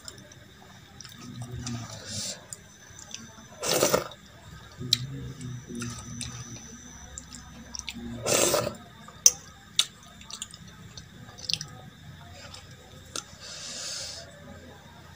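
Close-up eating sounds from a meal of dal and rice eaten by hand: fingers squishing the wet dal and rice, chewing and small mouth clicks, with two louder wet bursts about 4 and 8.5 seconds in as mouthfuls are taken.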